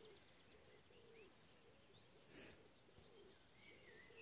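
Near silence: quiet outdoor ambience with faint, distant bird calls and chirps.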